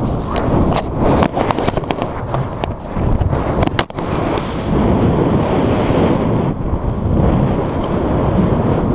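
Skiing fast down a snow slope: wind buffeting the action-camera microphone and skis scraping over the snow, with sharp knocks and rubbing against the camera during the first few seconds.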